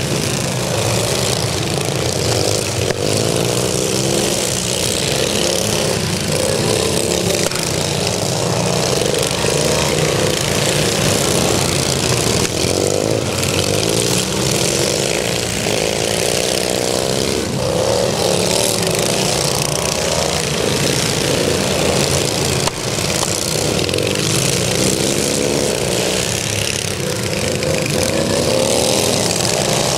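Several racing lawn tractors' small engines running together as they lap the track. The engine pitch rises and falls as the machines pass by.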